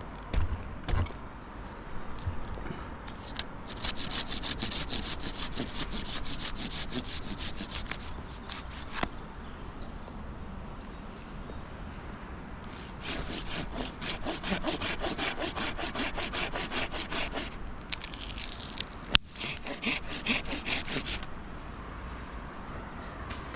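Hand saw cutting through dead softwood in quick, even strokes, in three bouts with pauses between them. A single sharp knock comes just before the last bout.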